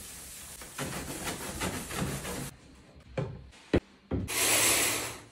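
Scrubbing a bathtub's surface: a rapid rasping rub of back-and-forth strokes for about two and a half seconds. Then a click, a sharp knock, and near the end a hiss lasting about a second.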